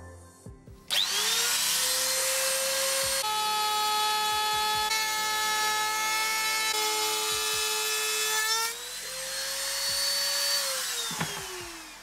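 A palm router is switched on about a second in and spins up with a rising whine. It runs steadily while cutting a groove along a pine drawer side for the drawer bottom, its pitch sagging slightly through the middle of the cut. It is switched off near the end and winds down with a falling whine.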